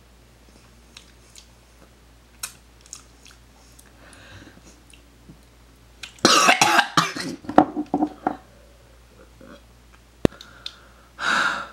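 A person coughing hard about six seconds in, a short broken fit followed by one more cough near the end, in reaction to the taste of lip gloss they have just put in their mouth. Before that there are only a few faint clicks.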